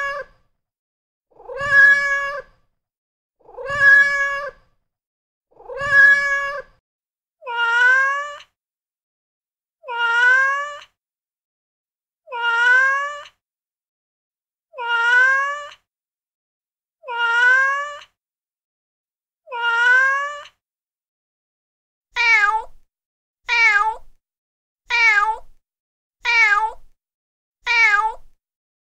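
Recorded domestic cat meows played back by a cat-sounds phone app, one clip looped after another. First a level-pitched meow four times about every two seconds, then a meow rising in pitch six times, then a shorter meow five times in quicker succession near the end.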